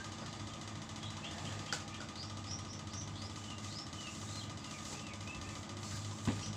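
Steady low hum of background noise with faint, short, high chirps scattered throughout, a sharp click about a second and a half in, and a soft thump near the end.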